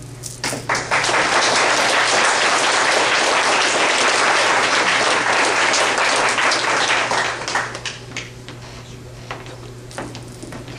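Audience applauding a medal presentation: the clapping starts about half a second in, holds steady, then thins out to a few scattered claps after about eight seconds.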